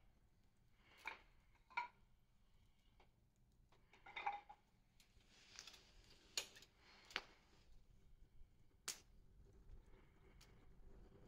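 Campfire burning with faint, scattered crackles: sparse sharp pops and snaps of burning wood, the sharpest about nine seconds in.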